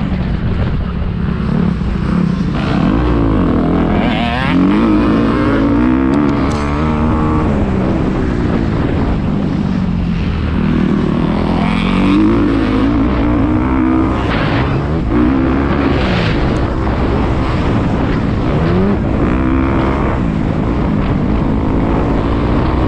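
Motocross dirt bike engine revving up and down over and over, its pitch climbing and falling as the throttle is worked around the track.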